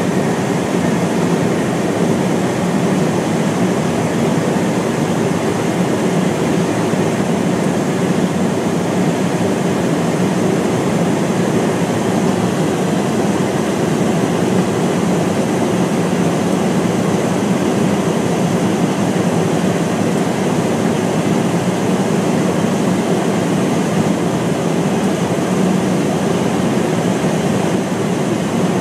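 Steady, unchanging rushing noise of airflow and the KC-10 Extender's turbofan engines, heard from inside the tanker's rear boom operator station in flight.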